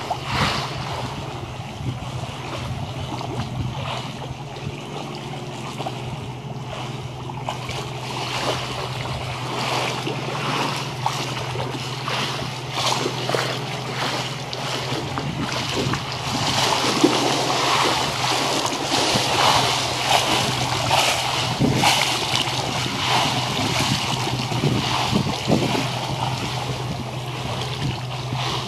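Choppy bay water lapping and splashing against a rocky shoreline, with wind buffeting the microphone; the splashing grows louder and busier about halfway through. A steady low hum runs underneath.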